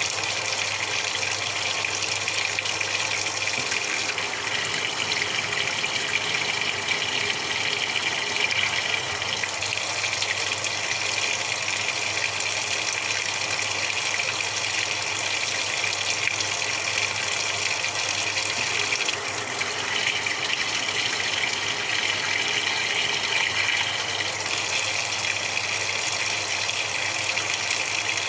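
Samsung 6.5 kg top-loading washing machine with water rushing steadily through it, over a low, even hum.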